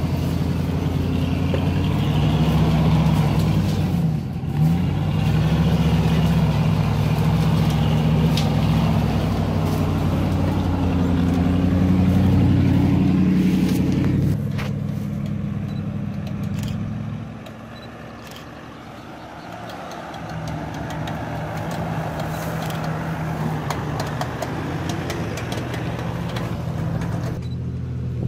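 Engine of a 4x4 off-road vehicle running under load, its pitch dipping and coming back up about four seconds in. It drops to a quieter, lower run a little past halfway, then picks up again.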